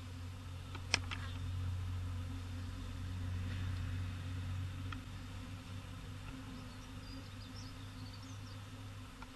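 A swarm of bees buzzing in a steady drone, with a sharp click about a second in.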